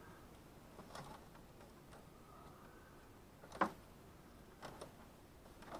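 A few faint, scattered plastic clicks and ticks from a cable tie and wires being handled, with one sharper click about three and a half seconds in.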